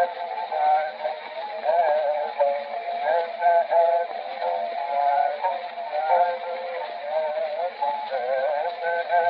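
Early acoustic gramophone record of a male Egyptian singer performing a dawr: a highly ornamented vocal line wavering up and down. The sound is thin and narrow-banded, with no bass or treble, over steady surface hiss.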